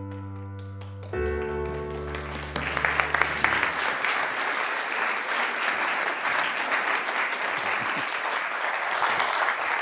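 Sustained chords of background music fade out, and about two and a half seconds in an audience breaks into steady applause that carries on.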